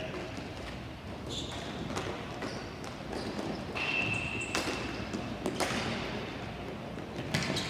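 Ball hockey play: scattered knocks of sticks and ball on the rink over a steady background din, with a short high squeak or whistle-like tone about four seconds in.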